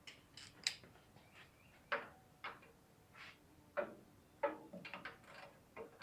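Metal hand tools clinking and clicking as they are picked up and handled: a dozen or so irregular sharp clicks, a few of them ringing briefly.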